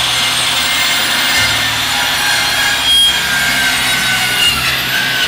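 Handheld circular saw running steadily as it cuts through a timber batten, the blade's noise in the wood loud and even throughout.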